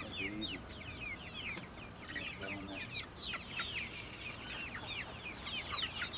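Chickens calling inside a coop: a steady string of short, high calls that fall in pitch, several a second, with a couple of brief low clucks.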